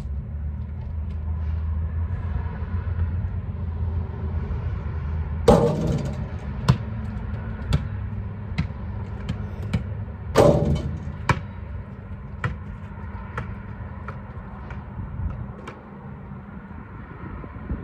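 A ball striking something hard twice, about five seconds apart, each hit ringing briefly, with smaller knocks of the ball bouncing on the asphalt roughly once a second between and after the hits. A steady low rumble runs underneath.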